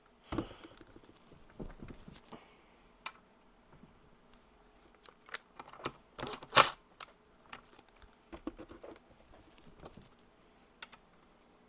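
Scattered clicks and clinks of sockets, wrenches and bolts being worked on an engine case, with one louder clank a little past halfway.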